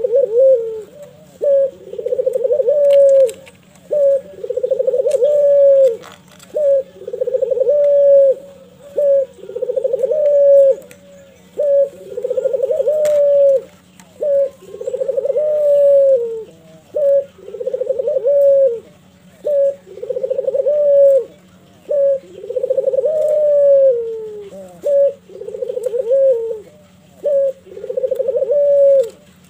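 Barbary dove (domestic ringneck dove, 'puter') cooing over and over in its display song while bowing. Each phrase is a short note followed by a longer, rolling coo, one about every two seconds.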